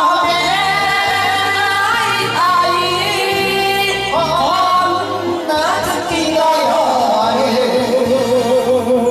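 A man and a woman singing a Japanese enka song through karaoke microphones over a karaoke backing track with a regular bass line, with vibrato on a long held note near the end.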